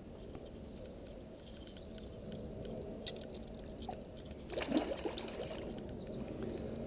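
Soft water splashing and sloshing from a hooked carp being played at the bank beside the landing net, with a brief louder splash a little after halfway.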